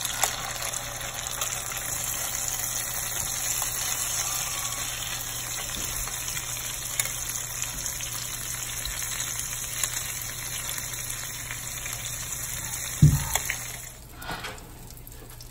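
Oil sizzling steadily as stuffed eggplant slices shallow-fry in a pan, with small clicks of metal tongs turning them and a louder knock about thirteen seconds in. The sizzling cuts off near the end.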